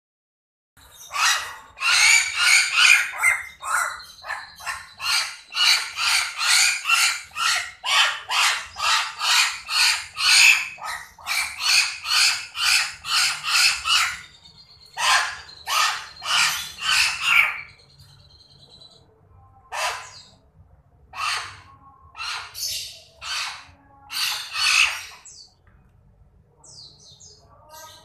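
Young Nias hill myna giving loud, harsh begging squawks as it is hand-fed, repeated about two a second for the first half, then fewer and more spaced out after a short pause.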